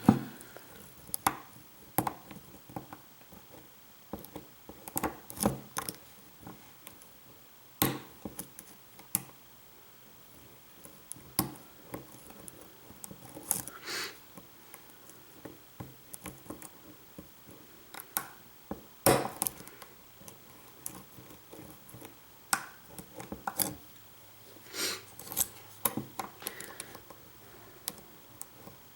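Lock pick and tension wrench working the pins of a pin-tumbler lock: scattered, irregular small metallic clicks and ticks, with a few louder ones.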